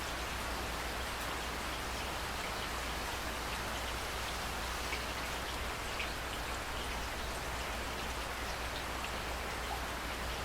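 Steady heavy rain, with scattered individual drops ticking over it and a constant low rumble underneath.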